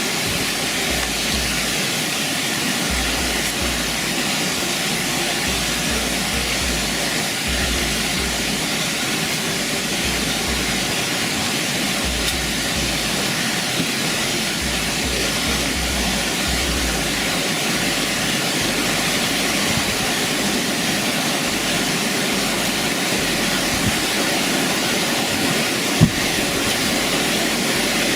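Waterfall rushing: a steady, loud wash of falling water, with one sharp knock near the end.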